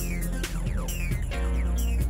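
Background music: an electronic track with short percussion hits and repeated falling glides over a steady bass.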